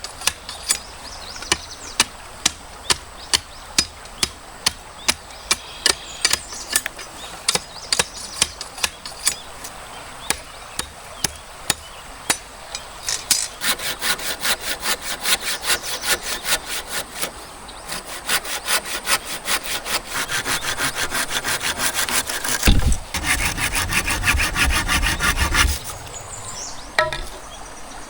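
Hand saw cutting through bamboo in quick back-and-forth strokes, starting about halfway and heaviest for a few seconds before it stops near the end. Before the sawing there are sharp single knocks about once a second.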